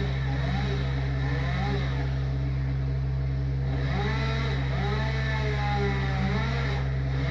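Steady low engine drone, unchanging in level, with bending higher-pitched sounds coming and going over it.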